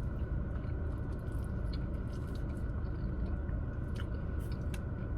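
A person chewing food close to the microphone: irregular wet mouth clicks and smacks over a steady low rumble.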